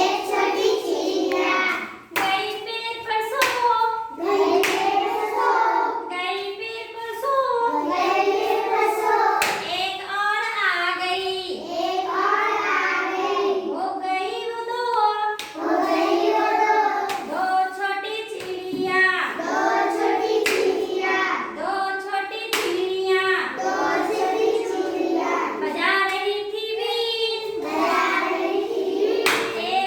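A child singing a Hindi nursery rhyme in a high voice, with hand claps between and during the lines.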